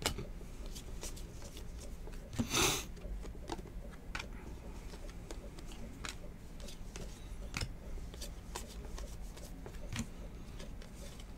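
Football trading cards being flipped through by hand, one after another: light card-stock slides and clicks. One louder rustle comes about two and a half seconds in.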